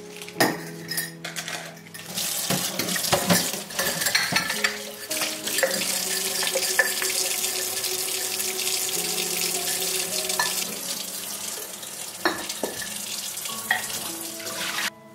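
Tap water running into a stainless steel sink while glass jars are washed, with glass knocking and clinking against the sink. The water stops suddenly near the end.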